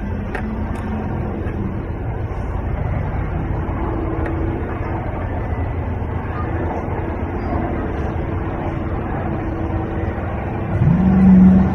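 Steady low rumble of vehicle road noise. Near the end a loud voice starts, rising in pitch and then holding.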